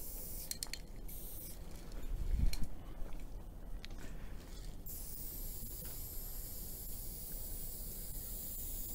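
Aerosol spray-paint can hissing in short bursts as a tag is sprayed, then a long continuous spray from about halfway. A low thump comes about two and a half seconds in.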